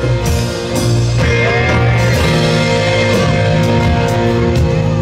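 Live country band playing an instrumental passage: electric guitar over bass and drums, with repeated cymbal strikes.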